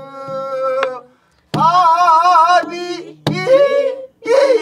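Pansori singing of a slow jinyang passage, with held notes that waver widely in pitch. The singing breaks off about a second in and resumes after a short gap. Two sharp strokes of a buk barrel drum mark the beat.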